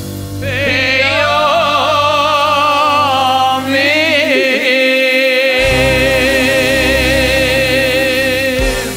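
Singing of a Jewish Sabbath table song (zemer) with live band accompaniment, the voice carrying a wide vibrato. About halfway through the voice settles on one long held note that lasts about five seconds, ending the song just before the end.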